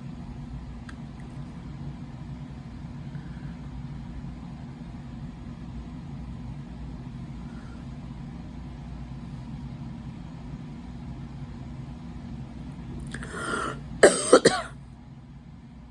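A person coughs twice in quick sharp bursts near the end, just after a breath in, over a steady low hum.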